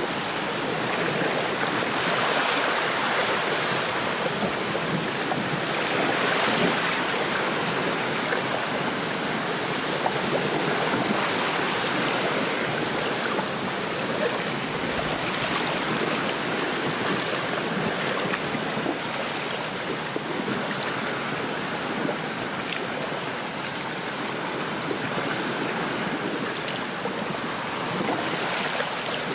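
Small lake waves lapping at the shore and wind rustling through a reed bed, a steady wash of noise that swells and eases a little.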